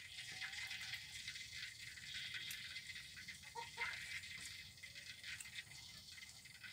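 Faint small clicks and smacks of a cat chewing and licking a piece of durian flesh, over a steady background hiss.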